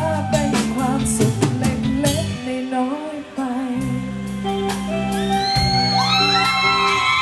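Live band playing a Thai pop song with female singing, drum kit and guitars. The drums pound through the first few seconds, break off briefly about three seconds in, then the band comes back in on sustained chords with sliding guitar notes near the end.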